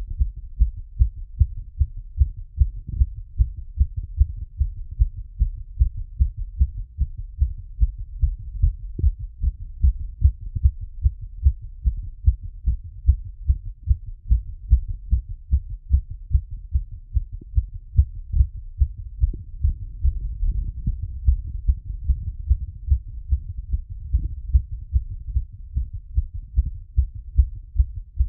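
Human heartbeat heard through a stethoscope after exercise: a steady run of low, muffled lub-dub beats at an even rhythm.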